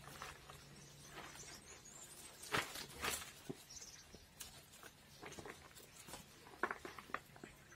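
Scattered rustling and light clicks of a bare-rooted Cymbidium orchid being handled and set into a plastic pot: roots, leaves and loose potting mix brushing against the pot and the hands. The loudest rustles come about two and a half and three seconds in, with another cluster of clicks near the end.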